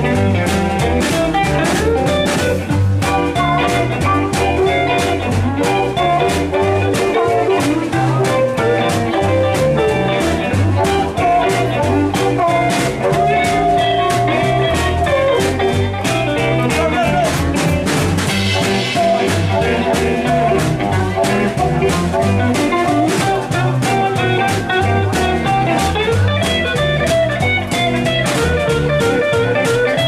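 Live blues band playing an instrumental stretch, with electric guitar, upright double bass and drum kit keeping a steady beat.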